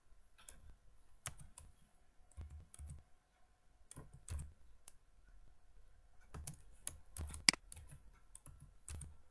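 Computer keyboard typing mixed with mouse clicks: scattered, irregular key strokes, with one sharper click about seven and a half seconds in.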